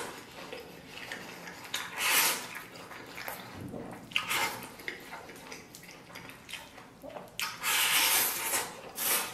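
Close-miked eating: rice shovelled from a bowl into the mouth with chopsticks, with wet chewing and sucking-in noises. There are louder rushes of noise about two and four seconds in, and a longer one of about a second near seven and a half seconds in.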